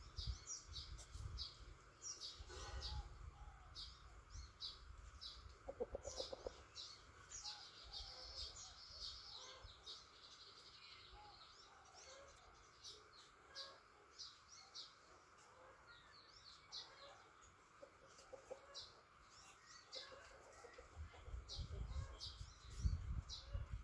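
Chickens clucking, with many short high-pitched chirps throughout and a lower call about six seconds in. A low rumble comes and goes near the start and again near the end.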